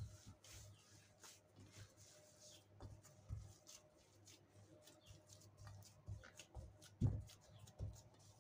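Hands kneading stiff, crumbly oat and walnut cookie dough in a glass bowl: faint crumbling and squishing with irregular soft thumps, the loudest about seven seconds in.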